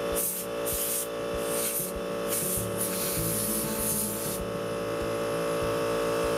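Compressed-air blow gun hissing in several short bursts, then a longer blast that stops about two-thirds of the way through, with one more short burst at the end. The air is clearing caked sawdust and old oil from a chainsaw's clutch cover. Background music plays beneath.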